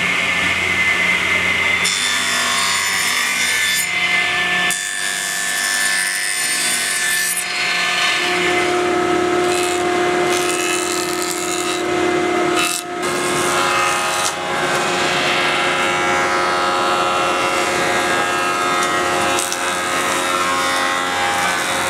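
Woodworking power saws running and cutting through timber, one machine after another. The pitch and hum change suddenly several times, as the sound passes from one machine to the next.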